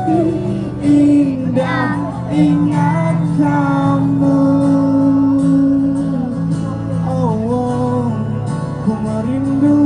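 Live band music through a concert sound system: a long held melody line that bends at a few points, over steady guitar chords, between sung lines.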